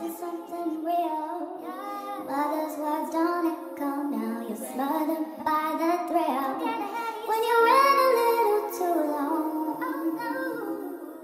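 Background music with a high singing voice carrying a melody.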